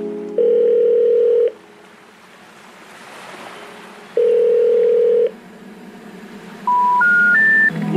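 Telephone call tones: a steady ringback tone sounds twice, about a second each, over a soft hiss. Near the end come three short tones stepping up in pitch, the intercept signal of a call that cannot be completed.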